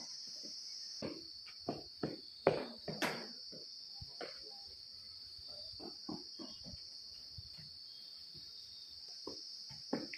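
Insects droning steadily with a high-pitched buzz, with scattered short knocks and footfalls on the dirt, the loudest about two and a half and three seconds in.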